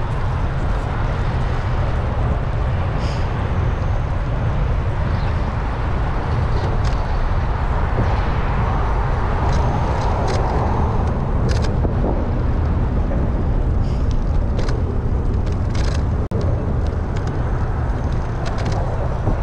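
Steady wind rumble and rolling noise on a bicycle-mounted action camera while riding, with scattered light ticks and rattles.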